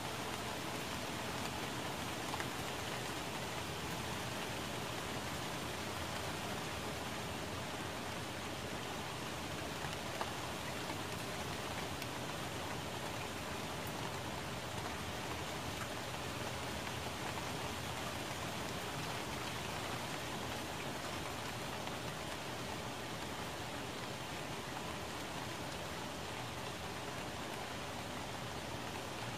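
Steady rain falling on plant leaves: an even hiss with an occasional sharper drop tick.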